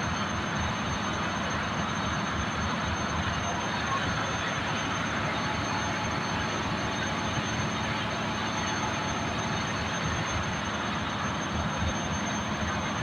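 Steady roar of ship's engine-room machinery, with a thin high whine over it.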